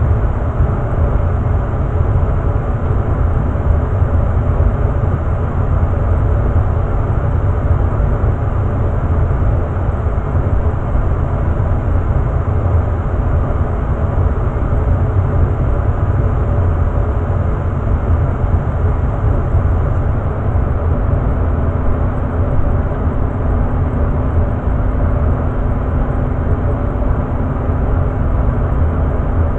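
Very old Day and Night gas furnace running, its burner and strong blower fan making a steady rushing rumble. About two thirds of the way through, a faint steady low hum joins in.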